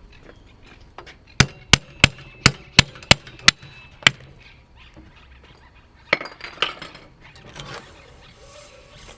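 Metal striking a BMX bike part: eight sharp, ringing knocks at about three a second, as a part is knocked loose, followed a couple of seconds later by a lighter clatter of metal parts.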